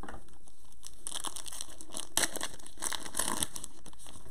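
Foil wrapper of a basketball trading-card pack crinkling and tearing as it is pulled open by hand, a crackle that starts about a second in and lasts a couple of seconds.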